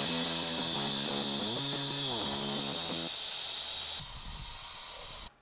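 Mitre saw cutting through a stack of aluminium extrusions, a loud high-pitched hiss. About four seconds in it drops to a quieter, duller run with a low rumble, then cuts off abruptly near the end.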